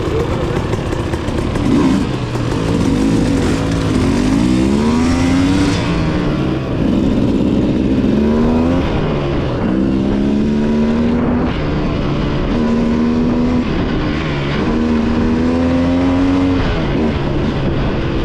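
A Sherco XC300 two-stroke dirt bike engine riding under load, revving up and dropping back again and again as the throttle is worked.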